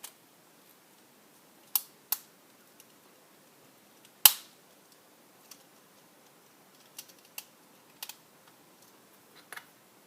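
Hard plastic Beyblade top parts clicking and snapping together as the top is assembled: scattered sharp clicks, the loudest about four seconds in.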